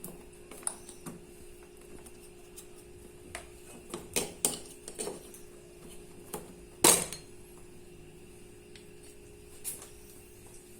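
Irregular metallic clinks and knocks of hand tools and metal parts as the brake is worked loose from a washing machine's drive mechanism. There are about ten of them, with one louder knock about seven seconds in, over a faint steady hum.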